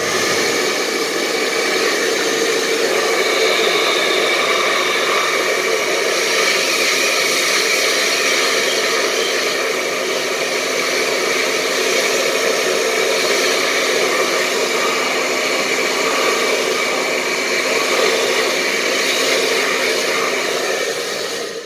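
Hot-air blower running steadily: a loud rushing of air with a faint, even motor hum, the way a phone's cracked screen glass is heated to soften its adhesive before removal. It stops abruptly at the very end.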